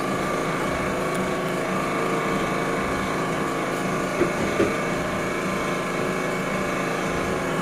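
Steady drone of a motor running without a break, with two faint clicks about four seconds in.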